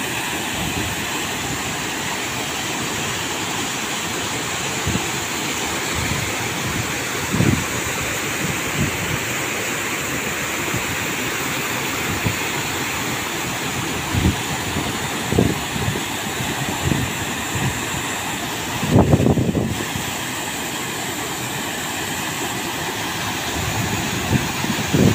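Steady rush and splash of water as several large pumps' outlet pipes pour jets into a river. Wind buffets the microphone now and then, most strongly about three-quarters of the way through.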